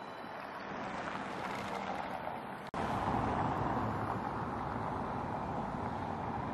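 City street traffic noise with a car driving past on cobblestones, rising over the first couple of seconds. It breaks off abruptly about two and a half seconds in, then steady street traffic noise carries on.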